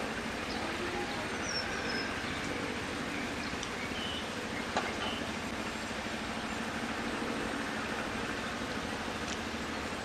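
Steady outdoor rushing noise, with a few faint high chirps and one short sharp click about five seconds in.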